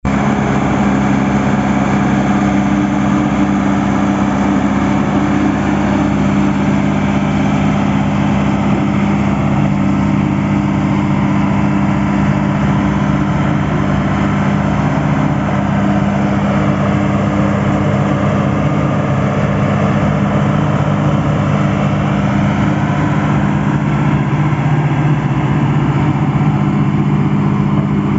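Caterpillar D5H bulldozer's diesel engine running steadily at a constant speed, with no change in pitch or level.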